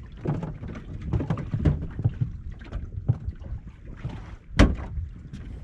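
Small waves lapping against a boat hull, with scattered light knocks and a sharper knock about four and a half seconds in.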